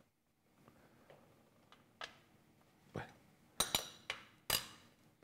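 Small metal mesh strainer clinking against a glass and a china plate as drained sardines are tipped out: several separate light clinks, the loudest coming in a quick cluster in the second half.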